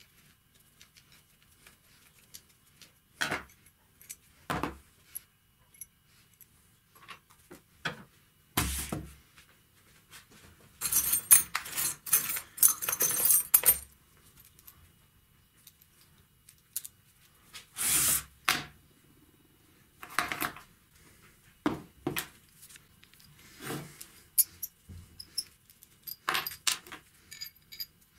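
Scattered metallic clicks and knocks from handling a rusty steel hand vise and hand tools, with a few seconds of rattling as a hand rummages through a wooden box of loose screws, nails and bolts around the middle.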